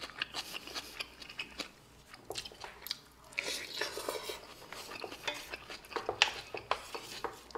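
Close-up eating sounds: wooden chopsticks clicking and scraping against a stainless steel pan, with a mouthful of saucy hamburger steak sucked in and chewed.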